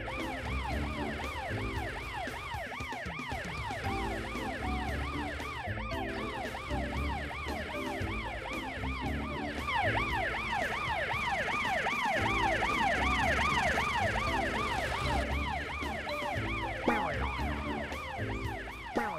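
Cartoon fire truck siren: a fast rising-and-falling wail repeating about three times a second, over background music with a steady bass beat.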